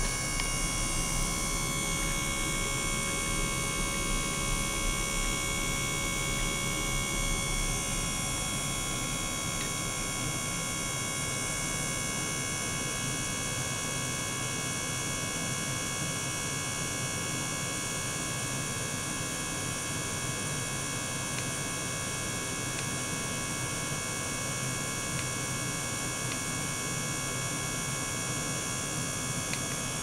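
Small liquid-circulation gear pump running steadily: a constant hum with several fixed high whining tones over it, a little louder in the first several seconds.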